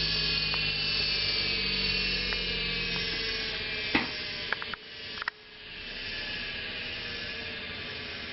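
Bench lathe's two-speed (1725/3450 RPM) split-phase or capacitor-start induction motor running with a steady whine and hum. About four seconds in come a few sharp clicks and a brief drop in sound, then the motor spins back up over the next second and runs steadily.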